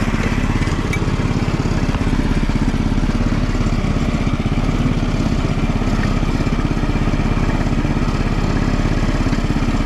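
Off-road go-kart's small engine running steadily as the kart drives along a dirt track, a fast even pulsing with no big changes in pitch.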